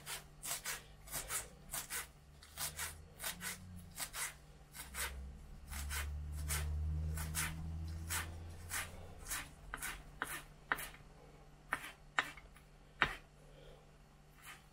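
Kitchen knife chopping fresh herbs on a wooden cutting board: a run of irregular chops, two or three a second, spacing out toward the end. A low rumble rises under the chopping for a few seconds in the middle.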